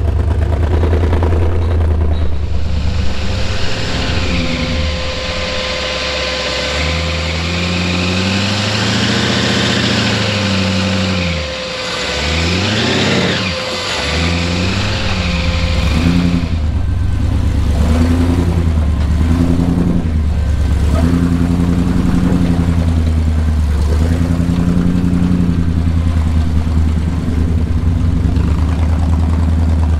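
Supercharged 454 big-block V8 of an off-road tow truck revving up and down under load as the truck crawls over rock. The revs sweep down and back up about halfway through.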